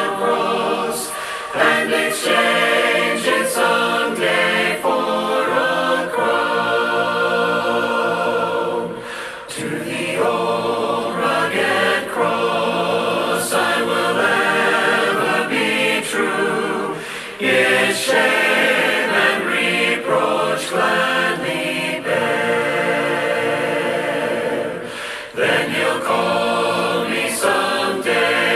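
A group of voices singing a hymn a cappella, in sustained phrases with short breaks between them.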